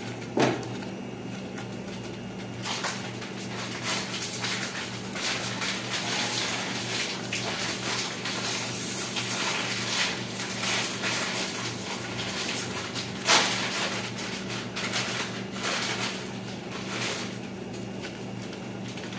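Water at a rolling boil in an uncovered stainless steel pot, bubbling and crackling steadily over a steady low hum. A few sharp clicks stand out, one near the start and a louder one about two-thirds of the way through.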